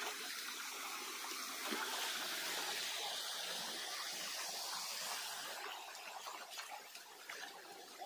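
Flowing water of a stream or waterfall: a steady hiss that grows fainter over the last couple of seconds.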